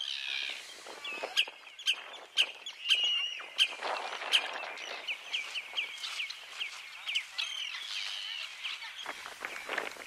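A chorus of wild birds calling: many short, shrill calls follow one another about three times a second, from birds around a coastal wet meadow.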